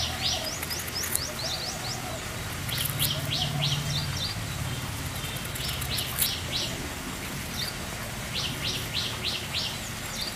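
Small birds chirping: quick runs of short high notes that come again every few seconds, with a few short rising whistles in the first second. A low steady hum lies underneath.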